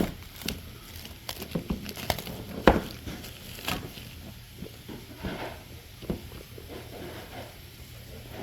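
A scatter of irregular taps, clicks and rustles, like things being handled, with the loudest knock nearly three seconds in.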